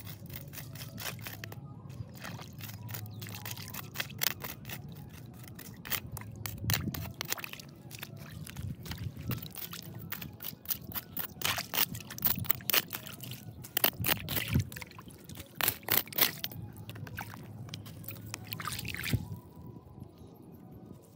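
Water pouring and trickling, with many irregular sharp clicks and knocks over a low steady hum.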